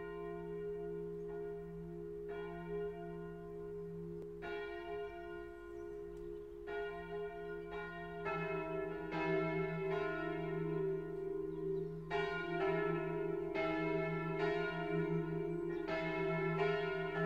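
Church bells ringing, each stroke leaving a long, steady hum. From about eight seconds in the strokes come faster and louder, with several bells overlapping.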